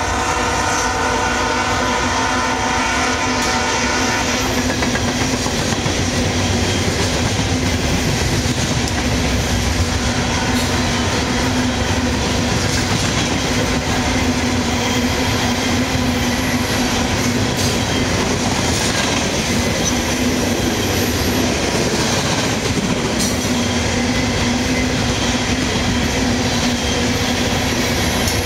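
Freight cars of a CSX train rolling past on the rails, a steady rumble with a low hum and occasional sharp clicks from the wheels. A locomotive horn is sounding at the start and cuts off about four seconds in.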